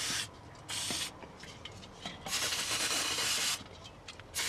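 Aerosol can of penetrating oil sprayed in short hissing bursts onto rusty suspension bolts to loosen them. The longest burst, a little over a second, comes about halfway through, and another starts near the end.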